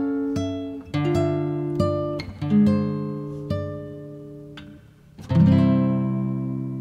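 Music: slow plucked guitar notes, one after another, each left to ring, then a fuller chord struck about five seconds in that rings out and fades.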